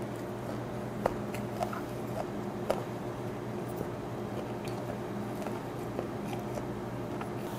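A person chewing a mouthful of fermented skate (hongeo): soft, wet chewing with a few sharp clicks, over a steady low hum.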